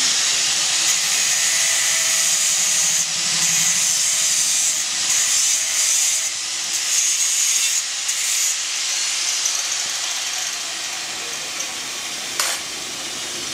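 Handheld angle grinder grinding steel, a loud steady grinding noise that dips briefly several times as the disc is eased off the metal. The grinding drops to a fainter level about eight seconds in, and a single sharp knock comes near the end.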